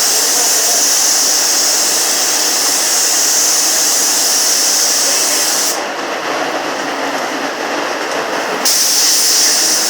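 Sagola paint spray gun spraying: a loud, steady hiss of compressed air. The high part of the hiss cuts out about six seconds in and comes back nearly three seconds later.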